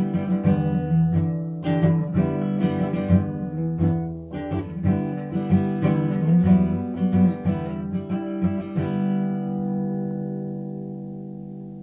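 Guitar music, picked and strummed, ending on a chord that rings out and slowly fades from about nine seconds in.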